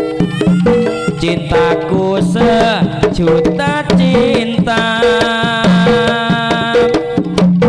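Live jaranan accompaniment: Javanese gamelan-style music with kendang hand drums driving the rhythm under repeated struck metal notes, played loud through a sound system.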